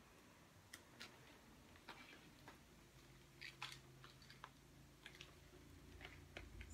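Near silence with faint, scattered small clicks and taps, about a dozen over several seconds, over a low steady hum.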